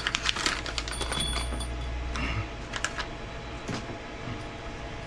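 Small RC car parts and hardware being handled on a workbench: light clicks and rattles, several in quick succession about a second in, then a few scattered ones, over a steady low hum.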